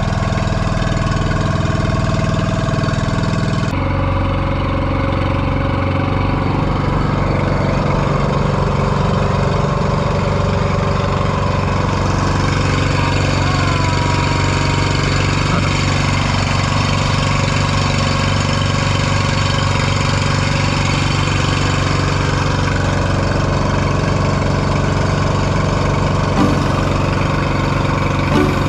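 Outrigger boat's (bangka) engine running steadily underway, a continuous engine note that shifts abruptly about four seconds in.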